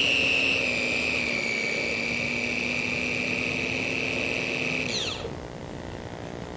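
Slow Stick park flyer's electric motor and propeller whining steadily at a slowly easing pitch, then winding down quickly about five seconds in as the throttle is cut, leaving a fainter steady hiss.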